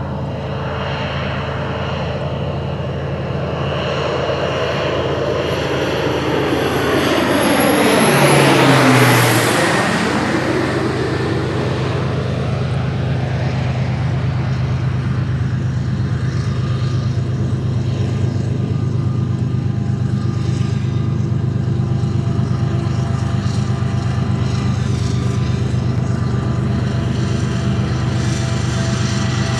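Crop duster's propeller engine passing close and low. It grows louder, then drops sharply in pitch as the plane goes by about nine seconds in, and is followed by a steady low engine drone.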